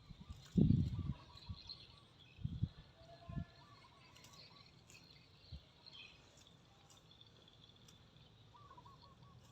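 Birds chirping and trilling in the background, with a few short low thuds in the first few seconds.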